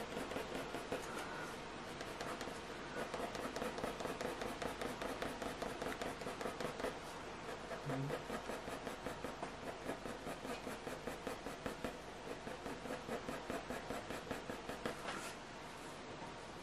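Graphite pencil scratching across hot-press watercolour paper in rapid, short, repeated strokes as fur is shaded in, stopping near the end.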